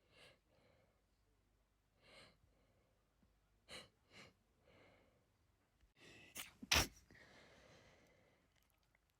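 A woman's sneeze build-up: several short catching breaths over the first five seconds, then a loud sneeze about seven seconds in, trailing off in a breathy exhale.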